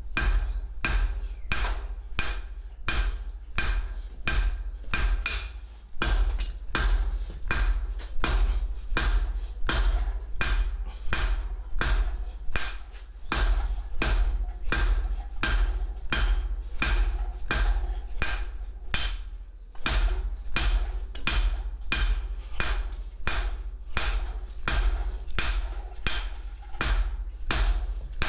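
Blacksmith's hand hammer striking hot steel flat bar on an anvil, forging split-bar tongs, in steady ringing blows about one and a half to two a second, with two brief pauses.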